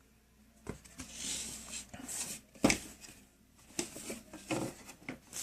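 Paper and packaging rustling as items from the box are handled, with several light knocks and one sharper knock about two and a half seconds in.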